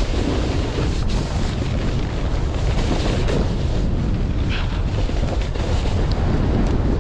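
Strong wind buffeting the microphone during a snowboard run: a steady, loud low rumble of wind noise.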